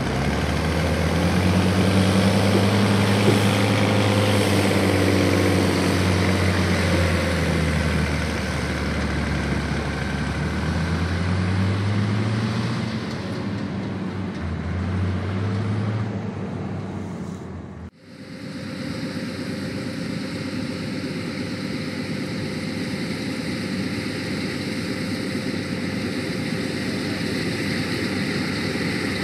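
Heavy diesel farm machinery running, its engine pitch rising and falling over the first half. It cuts off abruptly about 18 seconds in, giving way to a steadier, even machine hum.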